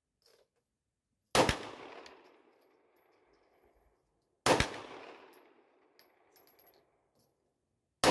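Three 9mm Luger pistol shots about three seconds apart, the last right at the end, each followed by a long echoing tail.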